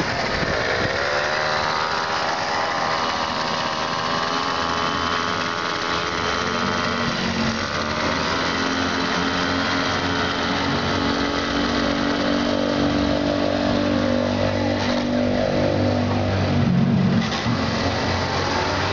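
Small 94 cc two-stroke chainsaw engine (a Russian Druzhba-4 Elektron) driving a homemade kart, running steadily with its pitch rising and falling as the throttle is opened and eased off.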